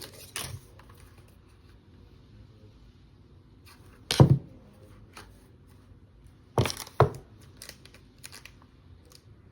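Gift packaging and box being handled: a few short rustles and knocks, the loudest about four seconds in and two more close together near seven seconds.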